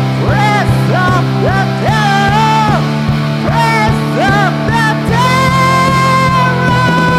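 Hard rock band playing an instrumental passage: a lead electric guitar bends notes up and lets them fall back over held bass notes and a steady drum beat. About five seconds in it settles on one long held note.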